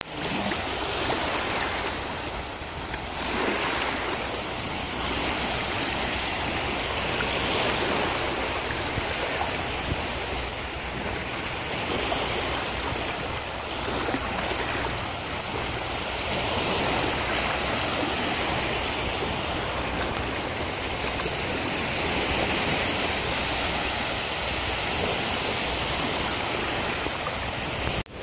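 Shallow surf washing in and out over a flat sandy beach, a continuous wash of small waves that swells and eases gently, with a low rumble of wind on the microphone.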